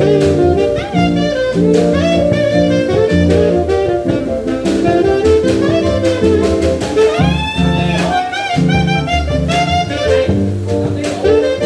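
Taiwanese-made alto saxophone with a D.D. Peng mouthpiece playing a jazz melody live, heard without effects, over a band of keyboard, bass and drum kit.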